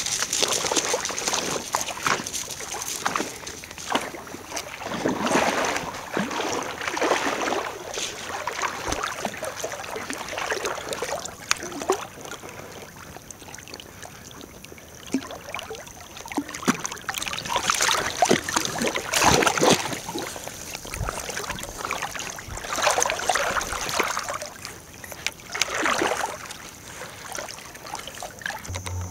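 Shallow lake water splashing and sloshing in irregular swells as a Jack Russell terrier wades and swims. Clicky crunching on shore gravel in the first few seconds.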